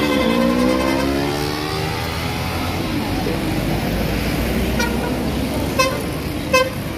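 Bus engine and road noise. Its pitch slides in the first second or so, then it runs steadily. Near the end a horn gives two short sharp toots, preceded by a fainter one.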